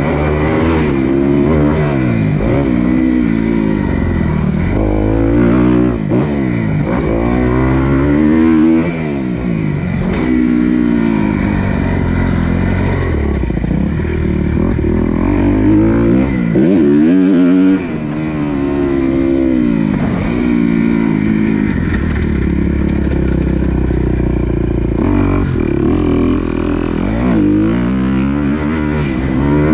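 A 250 motocross bike's engine revving hard and backing off again and again as it is ridden round a dirt track, its pitch climbing and dropping every second or two. Heard from a camera mounted on the bike.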